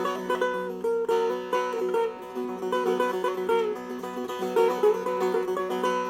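A small travel setar (an 'under-aba' Persian setar with a flat bowl) being played: a quick melody of plucked notes over ringing open-string drones.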